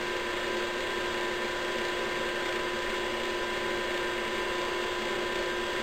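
Small lathe running steadily at raised speed, its motor giving a steady hum with a constant whine, while a polishing rag is held against the spinning brass center band.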